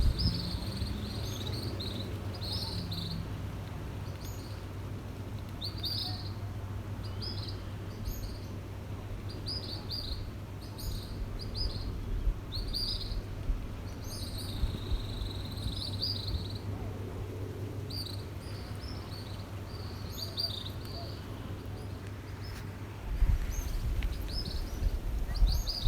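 Small birds chirping in short, quick calls, repeated throughout, over a steady low hum. A louder low rumble comes in near the end.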